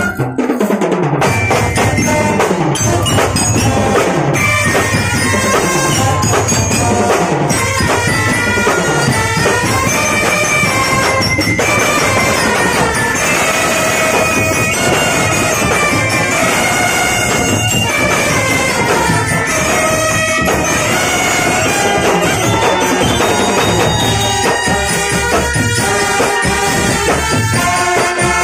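Marching brass band playing a tune: trumpets and sousaphones hold melody notes over drums.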